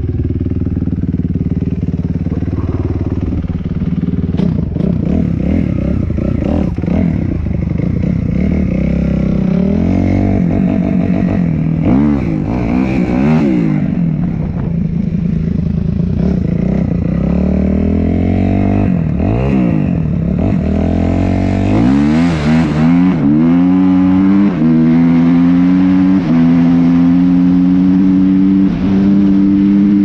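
2005 Suzuki RM-Z250's four-stroke single-cylinder engine idling steadily, then blipped and revved up and down repeatedly as the bike moves off. It then climbs in pitch and holds a steady higher note under acceleration, with a few short dips at the gear changes.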